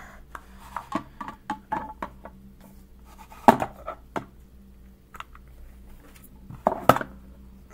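Hard plastic card holders being handled and set down: scattered light clicks and taps, with two louder knocks about three and a half seconds in and near the end.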